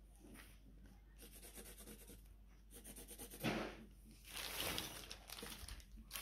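Plastic carrier bag rustling and crinkling as it is handled, in several short bursts, the two loudest about halfway through.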